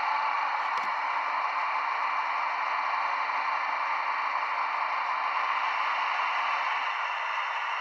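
Sound decoder in an H0 model of a DB class 218 diesel locomotive playing the locomotive's diesel running sound through its small speaker: a steady hissing hum with a low steady tone under it that stops shortly before the end. There is a single click about a second in.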